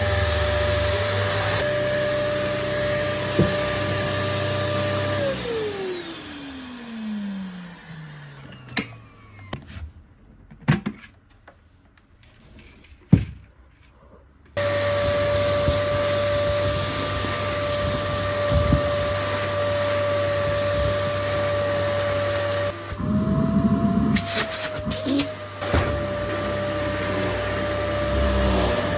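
Dyson DC08 cylinder vacuum cleaner running with a steady whine, switched off about five seconds in and winding down with a falling pitch. A few knocks and clicks follow in the quiet, then it starts up again abruptly about halfway through. Near the end its pitch briefly wavers with a rattle before it settles back to a steady run.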